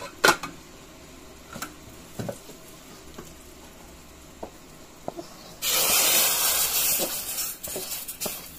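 An aluminium pot lid clanks as it is lifted. About five and a half seconds in, a wok of hot oil and fried spices is tipped into a pot of hot water, setting off a sudden loud sizzling hiss that fades over a couple of seconds.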